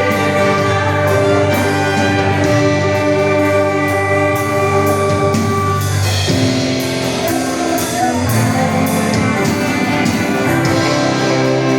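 Music: instruments playing held chords, the harmony changing about six seconds in.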